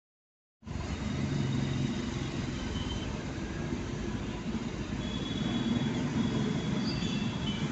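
Road and engine noise inside a moving car in city traffic: a steady low rumble with road hiss. It cuts in suddenly about half a second in, after dead silence.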